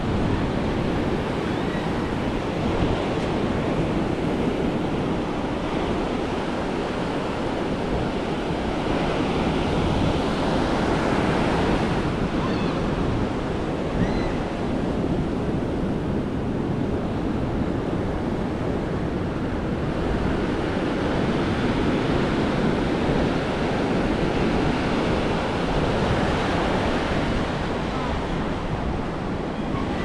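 Ocean surf breaking and washing up a sandy beach in slow surges that swell and ease, with wind rumbling on the microphone.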